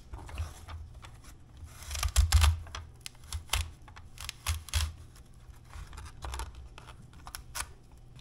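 Carrots being pushed across a plastic mandoline slicer's julienne blade, a series of uneven crisp scraping and cutting strokes, the loudest run about two seconds in.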